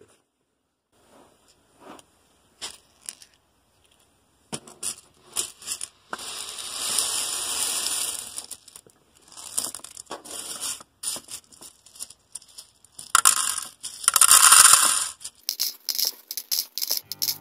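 Hundreds of small round plastic Lego dots pouring out of a clear plastic tray into a Lego brick box, clattering and rattling against plastic. After a few faint clicks, the pour starts about four and a half seconds in and comes in several rushes, the loudest near the end, which trails off into quick scattered clicks.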